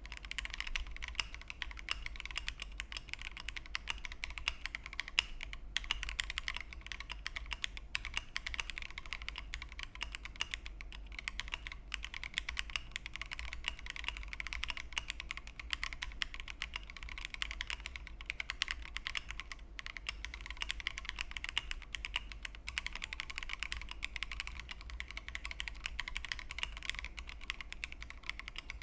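Fast continuous typing on an Akko MOD-series aluminium gasket-mount mechanical keyboard with foam-dampened plate and case: a dense run of key clicks with a few short pauses, over a steady low hum. The typing still has a somewhat hollow sound, which the reviewer thinks may need further modding.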